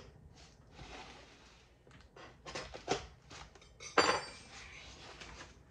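Knife slicing through packing tape on a cardboard box, then cardboard flaps being pulled open, with a few short clicks and one sharp metallic clink about four seconds in.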